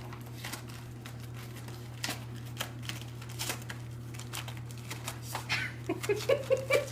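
Wrapping paper crinkling and tearing in irregular crackles as a Toy Fox Terrier rips open a present, over a steady low hum.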